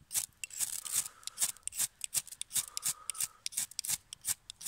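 A ferrocerium rod scraped hard and fast with a steel striker, a quick even run of rasping strokes, several a second, throwing sparks at a dry-grass tinder bundle.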